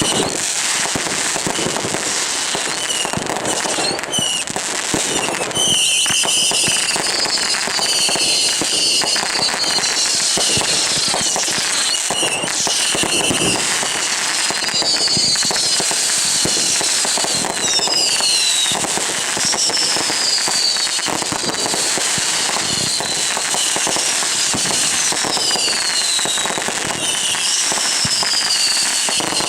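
Consumer fireworks going off without a break: a dense, steady crackle of many small reports, with repeated short whistles that fall in pitch.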